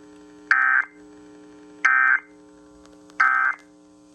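Emergency Alert System end-of-message data burst: three short bursts of warbling digital tone about 1.3 seconds apart, signalling that the alert has ended. A faint steady hum runs underneath.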